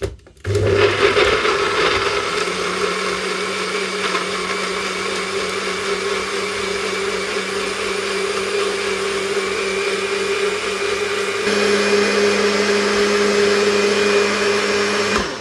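Countertop blender (smoothie maker) starting up and running steadily, blending diced lemons and spices with a little water. About eleven seconds in, its pitch and level step up slightly, and it stops just before the end.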